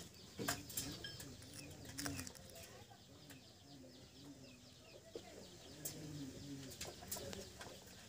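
Low, soft cooing bird calls repeating one after another, with a few faint high chirps and scattered sharp clicks, the clicks likely from scissors snipping at the shell membrane.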